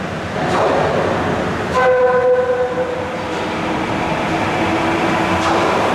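Sapporo subway 8000-series rubber-tyred train approaching through the tunnel, its rumble growing. About two seconds in it sounds its horn, one pitched blast about a second long.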